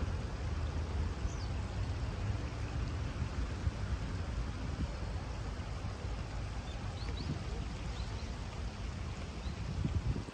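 Shallow river water flowing steadily over a stony riffle, with a low rumble underneath. A few short, high bird chirps come through now and then.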